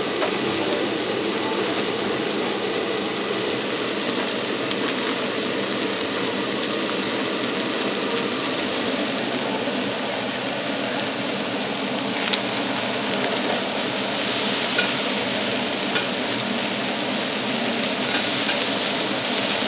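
Oyster blade steak sizzling as it sears on a hot cooking surface, a steady frying hiss with a few sharp clicks. The sizzle gets louder and brighter near the end.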